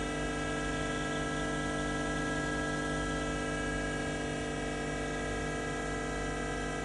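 ENSHU E130 vertical machining center switched on and running, giving a steady machine hum with several constant tones that holds unchanged throughout.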